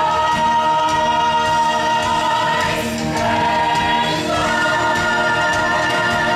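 Stage cast of a rock opera singing long held notes in choral harmony, the chord shifting about three seconds in and again, higher, just past four seconds.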